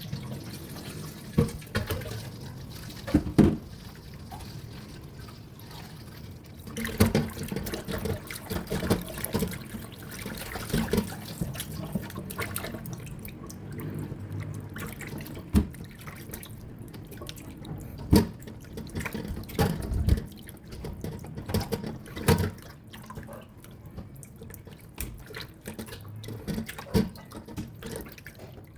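Tap water running into a kitchen sink, with irregular knocks and clatter of things being handled in the water.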